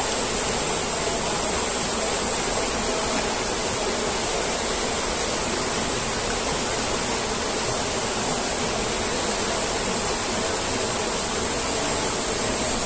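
A small, fast-flowing river rushing over rocks: a steady, unbroken sound of running water.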